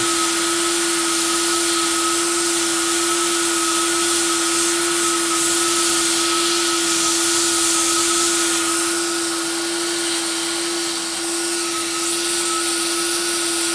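Hot-air plastic welder (heat gun welder) running steadily: a blower hiss with a steady hum and a fainter higher whine, as it melts polyethylene welding rod into a countersunk screw hole in a plastic kayak hull.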